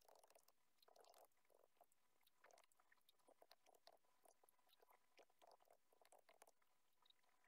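Very faint computer keyboard typing: irregular, rapid little key clicks.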